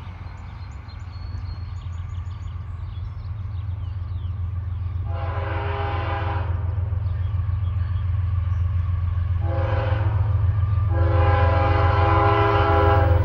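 Approaching diesel freight locomotive sounding its multi-note air horn for a grade crossing: a long blast, a short blast, then a long blast still going at the end, over a steady low engine drone that grows louder as the train nears.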